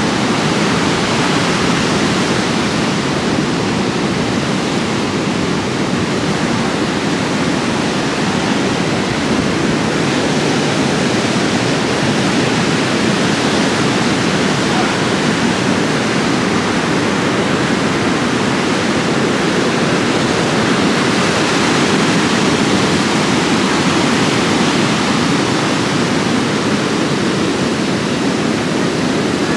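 Steady, loud roar of ocean surf breaking.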